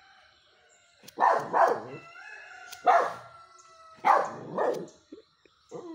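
Small white puppy barking in short bursts, about five barks in two pairs with a single bark between, while play-biting a person's hand.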